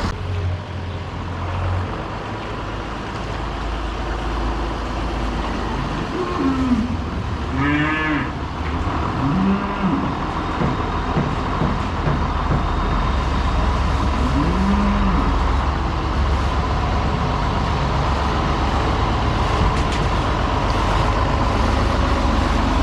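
Heifers mooing several times, over the steady low running of a tractor engine.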